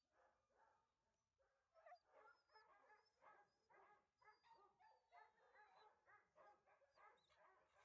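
Dog barking in a quick series of short barks, about three a second, starting about two seconds in; faint.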